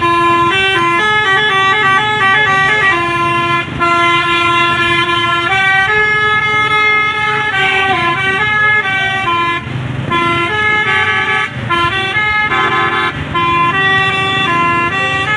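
A bus's Basuri "telolet" multi-tone horn playing a long melody: loud horn notes that step from pitch to pitch, some short and some held a second or two.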